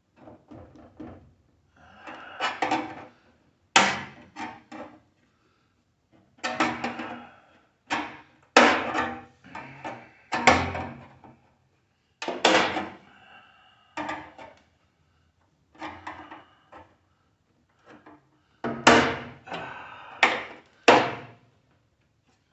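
Irregular loud bangs and clatter of sheet metal, some blows leaving a short ring, as the access panel in the base of an upside-down microwave oven is broken open to get at the turntable motor.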